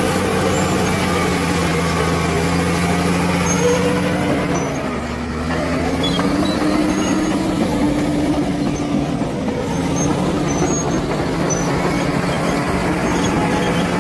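Bulldozer's diesel engine running hard under load, with a steady low drone. About five seconds in the engine note dips briefly and then climbs back up.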